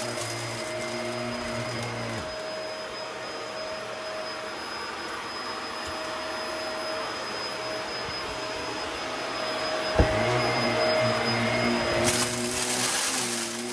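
Red upright bagless vacuum cleaner running steadily on carpet with a constant whine. Its deeper hum drops away about two seconds in, and there is a sharp knock near ten seconds. From about twelve seconds a louder hissing rush sets in as it pulls up the crumbs and debris along the skirting board.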